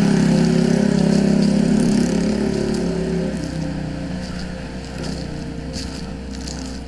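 A small engine runs steadily and fades away over the first few seconds. A few light crackles follow near the end.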